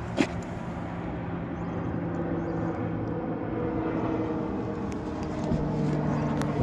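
A steady engine hum from a nearby vehicle or machine, its pitch shifting a little partway through, with a sharp click about a quarter second in and another near the end.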